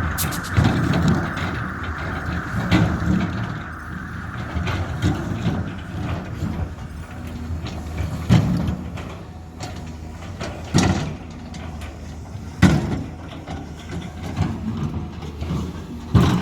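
Cat 320 excavator's diesel engine running under load, with sharp knocks and clunks of stone against stone or the bucket every few seconds as rocks are set on the slope.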